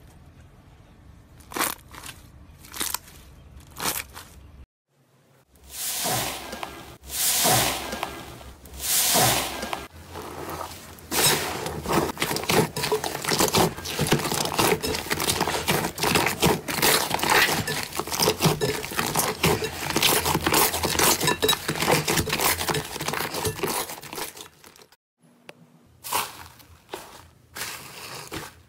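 Hands working slime. First a few sharp sticky pops, then swelling squishes, then a long stretch of dense crackling and squelching as thick slime is kneaded, and a few pops again near the end.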